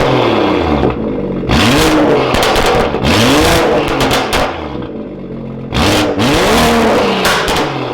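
Stage 2 tuned BMW M140i's turbocharged 3.0-litre straight-six B58 being free-revved through an exhaust with both resonators deleted and an M Performance back box: three sharp revs, about 1.5, 3 and 6 seconds in, each climbing and falling back to a lower running note.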